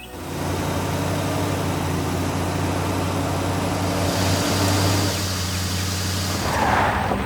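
Heavy vehicle engine running steadily, a low even hum, with a brief whoosh near the end.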